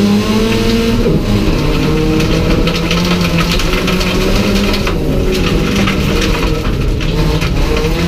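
Race car engine heard from inside the stripped, caged cabin, running hard at high revs: the pitch climbs over the first second, dips, then holds high. Clattering knocks and rattles run through it.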